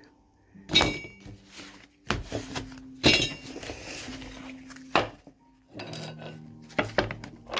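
Tarot deck being cut and set down on a table by hand: a series of knocks, clicks and rustling card noises, a few with a short ring.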